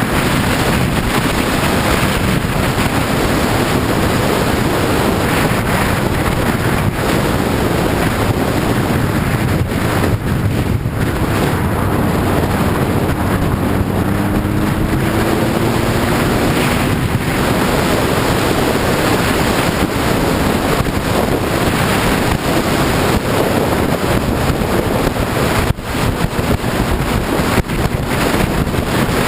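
Sport motorcycle riding at speed: heavy wind noise on the microphone over the engine, whose pitch rises a little around the middle.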